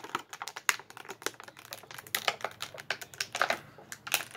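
Clear plastic packaging from an action figure being handled and picked open by fingers: irregular sharp clicks and crinkles, several a second.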